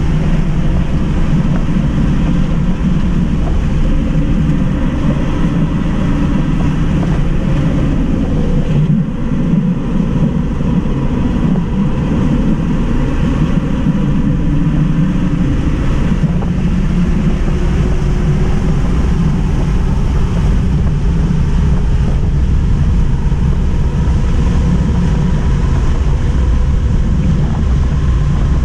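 Cabin noise inside a 2018 Tesla Model 3 Mid Range RWD at track speed: steady, loud road and tyre roar with wind noise, and a faint steady high tone over it.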